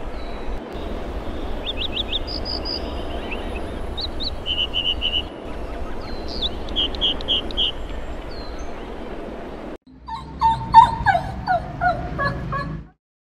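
Short, repeated bird chirps over a steady outdoor background hiss and rumble. About ten seconds in, this gives way to a dog whimpering and yipping in high, downward-sliding cries, the loudest part, which stop suddenly.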